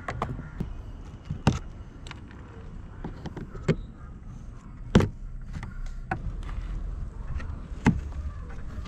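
Plastic push-pin trim clips being prised out of a car's carpeted boot side panel with a screwdriver, and the panel handled: a handful of scattered sharp clicks and knocks, the loudest about five seconds in, over a low rumble.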